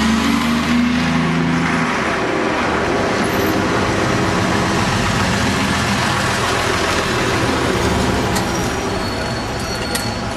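Routemaster double-deck buses running past close by in traffic, a diesel engine note strong in the first two seconds and then even traffic noise. A few brief high-pitched squeaks come near the end.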